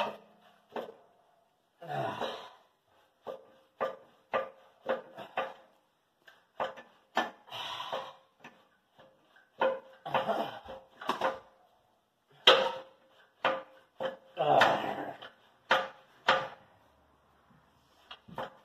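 Factory muffler of a Jeep Wrangler being wrenched back and forth by hand to free it from the exhaust pipe, its clamp loosened and rubber hangers already off: an irregular run of metallic clunks and knocks, many with a brief ring, and a few longer scrapes.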